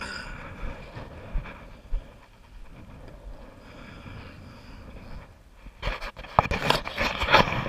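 Faint background with a few soft thumps, then, about six seconds in, a loud crackling rustle and scraping right at the microphone, like straw bedding and cloth being disturbed as the camera is moved.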